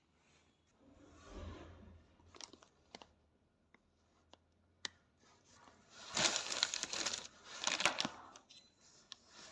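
Rustling and crinkling handling noise with scattered light clicks, and two louder stretches of crinkling near the end.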